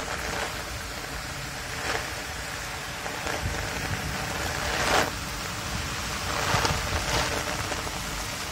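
Heavy rain pouring steadily in a thunderstorm, with a few brief louder surges, the strongest about five seconds in.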